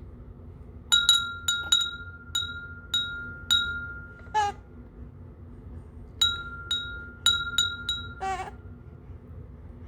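A small bell struck again and again, each strike a bright ringing note with a short decay: about seven quick rings, a pause, then five more. A baby gives a short warbling coo twice, after each run of rings.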